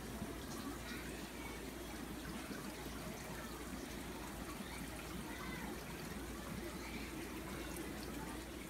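Aquarium filters and air lines running: a steady trickle and bubbling of water with a constant low hum.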